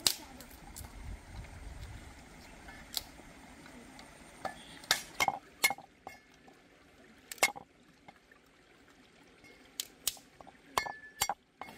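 Heavy cleaver knocking on a thick round wooden chopping block while shallots are cut: about ten sharp, irregular knocks, some in quick pairs, over a low steady hiss of running stream water.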